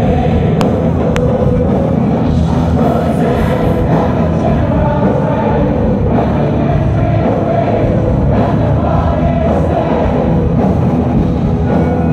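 Live rock music from a massed band of hundreds of guitarists, drummers and other musicians playing together, with many voices singing at once.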